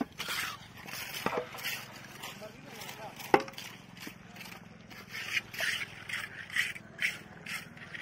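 Footsteps crunching on loose gravel and dirt, about two steps a second, with a sharp knock about three seconds in that is the loudest sound.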